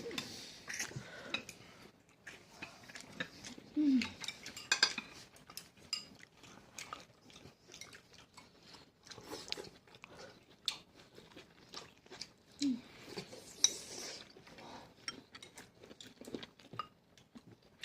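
Eating sounds: chewing and biting with irregular clicks of utensils against bowls and plates. A brief falling-pitched vocal sound comes about 4 s in and again around 13 s.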